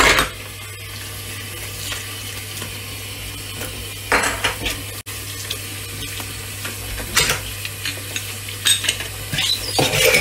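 Tap water running steadily into a stainless steel sink, with a few brief clatters as metal gas-hob burner caps and burner heads are picked up, rinsed and set down against the sink.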